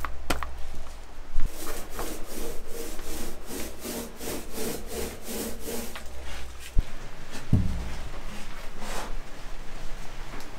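Small paint roller rolled back and forth over a cabinet panel, laying on gray bilge enamel: a run of quick, even rubbing strokes over a low hum, followed by a couple of knocks about seven seconds in.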